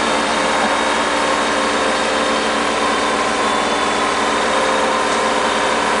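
The engine of a crane running steadily while it lifts a heavy load, a constant mechanical drone with a few steady tones in it.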